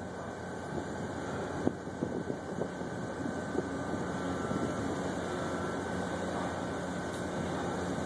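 Covered hopper car of a slow-moving freight train rolling past: a steady rumble of steel wheels on rail, with a few clicks and knocks in the first couple of seconds.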